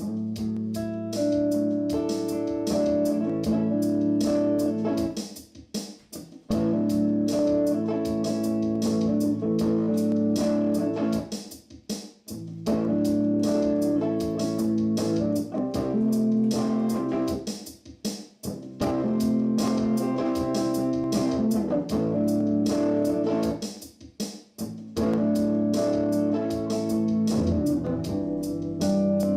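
Guitar played over a looper: a layered guitar phrase about six seconds long repeats, with a short drop at the end of each cycle.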